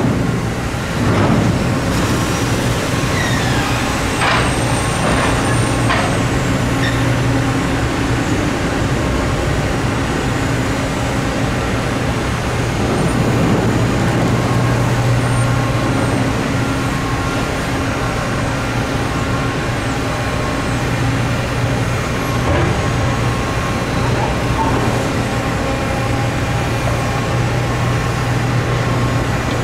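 Heavy engine running steadily at a low idle, with a few metallic clanks and a brief high squeal in the first few seconds.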